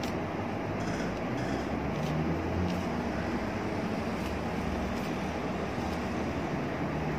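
Steady low hum and rumble, with a few faint clicks.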